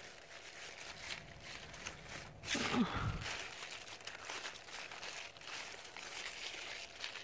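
Swiss chard leaves rustling and crinkling as a hand pushes through the plant and pulls stalks off, with a louder crunch about two and a half seconds in.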